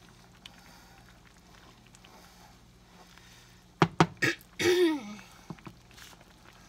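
A person coughs several times in quick succession about four seconds in, ending in a short voiced throat-clearing that falls in pitch. Before it only a faint, steady low hum is heard.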